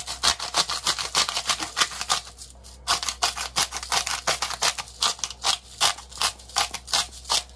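Hand-twisted grinder cracking Himalayan salt, a rapid run of sharp crunching clicks, about four a second, with a brief pause about three seconds in.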